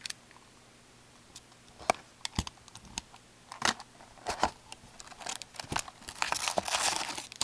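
Scattered sharp clicks and taps of a cardboard trading-card box and packs being handled, turning into denser crinkling of card-pack wrappers from about six seconds in.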